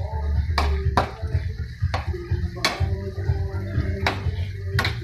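Spatula scraping and knocking against a wok while stir-frying sliced hotdog and garlic, with about five sharp clacks spread through, over a steady low hum.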